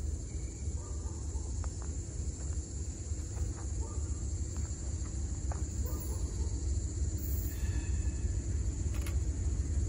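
Distant ALCO C424 diesel locomotive, its V16 engine a low rumble growing slowly louder as it approaches. A steady insect buzz and a few faint bird chirps sit over it.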